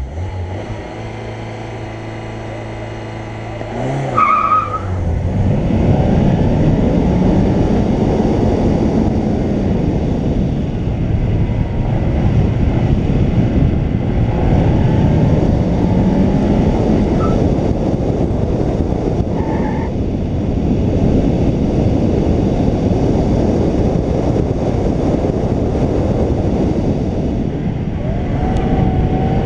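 Peugeot 205 1.6 GTI's four-cylinder engine running steadily at the start line, then launching hard about four seconds in with a brief tyre squeal. It then revs up and down repeatedly through the slalom, with a few more short tyre squeals.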